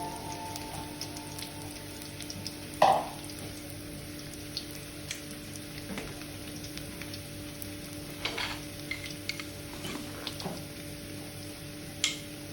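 Papaya flowers frying in a pan: a faint steady sizzle with scattered small clinks of a utensil being stirred, one louder ringing metal clink about three seconds in, and a low steady hum under it.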